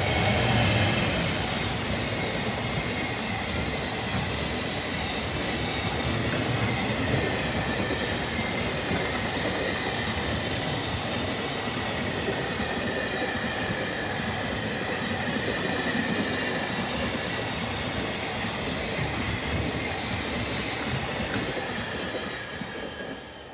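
Freight train hauled by a JR Freight EF210 electric locomotive passing close by. A long string of wagons rolls past steadily with a rumble, and a high ringing tone slowly drops in pitch. The sound fades away near the end as the train goes by.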